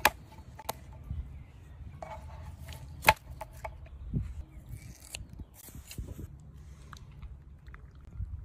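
Scattered clicks, taps and light crinkles from hands handling a sticky rubber toy fish and its plastic blister packaging on a wooden board, with one sharper click about three seconds in.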